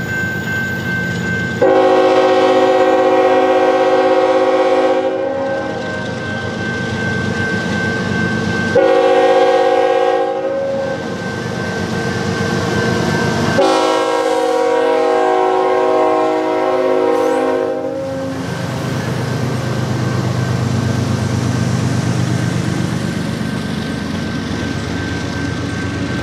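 Diesel locomotive's multi-chime air horn sounds three long blasts, about two seconds in, nine seconds in and near fourteen seconds in, over the rumble of the approaching freight train. After the horn the locomotives pass close by, and the double-stack intermodal cars follow with a steady rolling rumble.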